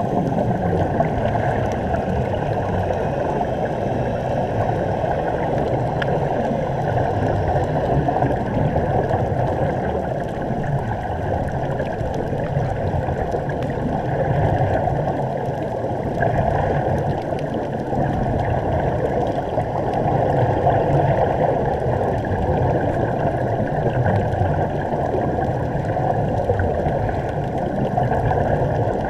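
Steady, muffled underwater rushing and bubbling, recorded inside a waterproof GoPro housing beneath the sea, with air bubbling out of air-fed diving helmets supplied through hoses from the surface.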